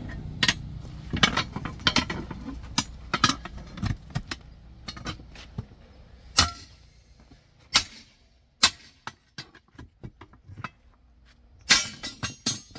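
Irregular sharp metallic clinks and knocks of tools on metal during tire repair, over a low engine rumble that fades away after the first few seconds.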